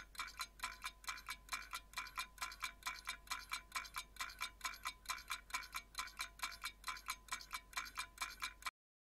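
Countdown timer ticking sound effect: fast, even ticks, about four to five a second, each with a short metallic ring. The ticking cuts off suddenly near the end.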